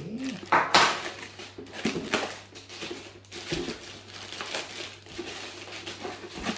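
Parcel packaging being handled and crinkled as a courier parcel is opened, with irregular crackly rustles, the loudest just under a second in.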